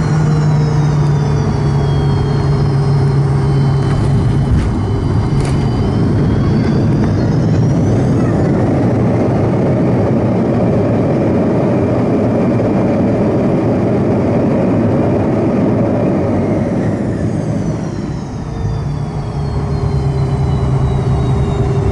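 Fokker 100's rear-mounted Rolls-Royce Tay turbofan engines heard from inside the cabin on landing. A couple of sharp knocks at touchdown about five seconds in, then the engines spool up into a loud, steady roar of reverse thrust for several seconds. The high whine falls away again near the end as they spool down.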